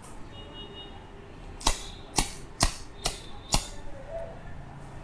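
Five sharp cracks about half a second apart, given during a head massage.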